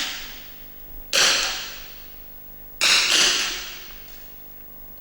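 .22 rimfire smallbore rifle shots on a shooting range: two sharp cracks, about a second and a half apart, each ringing out with a long echo, and the fading echo of an earlier shot at the start.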